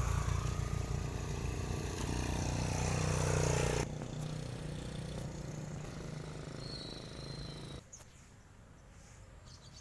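Motor vehicle engine running loudly with a deep rumble, its pitch falling a few seconds in. The sound drops sharply about four seconds in, then cuts away near the end to a faint background.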